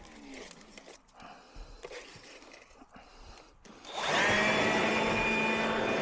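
A few faint clicks and handling knocks, then about four seconds in a motor-driven tool starts abruptly and runs at a steady whine.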